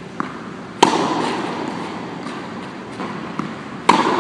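Two tennis forehands, each a tennis ball struck by a racket with a sharp pop, about three seconds apart, echoing off the walls of an indoor court hall. A softer tap, the ball bouncing, comes just before each hit.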